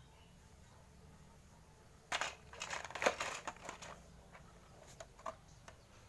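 Handling noise: a burst of crinkling, crackling clicks lasting about two seconds, then two single clicks.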